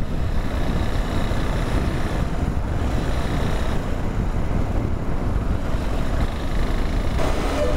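Steady wind rushing over the microphone of a moving motorcycle, with a low rumble underneath and no distinct engine note.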